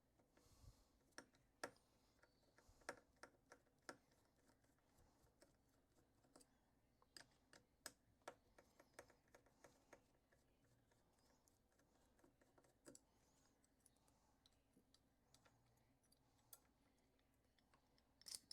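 Faint, irregular small clicks and taps of tools and parts being handled while a Goal D9 lock is opened up for disassembly.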